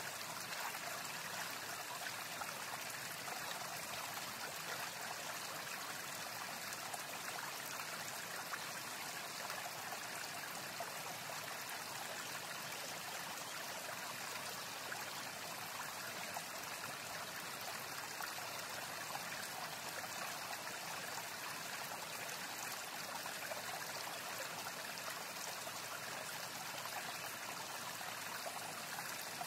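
Stream water running steadily, an even rush with no separate splashes or other events.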